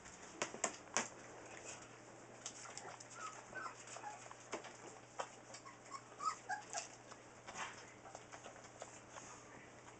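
Newfoundland puppies whimpering in short high squeaks while they eat dry kibble, with scattered clicks and crunches from the eating. The sharpest clicks come about half a second to a second in, and the squeaks fall mostly in the middle.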